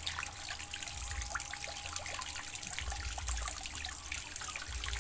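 Water trickling steadily in a fish pond, with many small scattered ticks and splashes at the surface.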